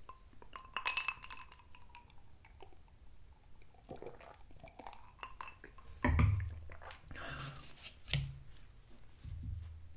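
A drinking glass clinks with a short ring about a second in, followed by swallowing as a drink is taken. A dull thump comes about six seconds in as the glass is set down, and a fork clicks on a plate near the end.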